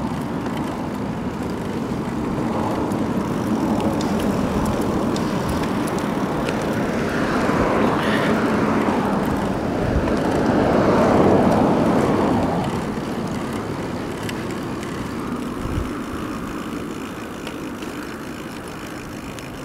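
Steady wind rush on the microphone of a handlebar-mounted camera while cycling. A car passes on the adjacent road: the rush swells about seven seconds in, peaks a few seconds later and fades again.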